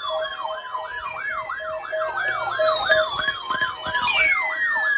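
Several sirens sounding at once: a fast yelp sweeping up and down about three times a second over a pulsing steady tone, with long slowly falling wails, a new one starting about four seconds in.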